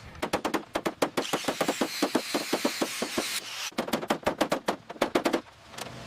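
Rapid metallic tool clatter on engine bolts: quick runs of sharp strikes several times a second, with a steadier rattle in the middle and a short break about three and a half seconds in.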